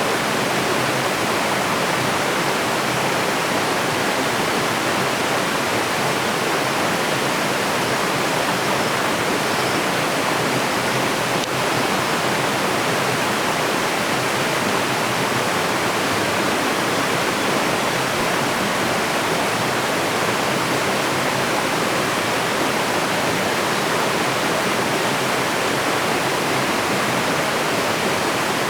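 Water falling in a cascade, a steady, unbroken rush.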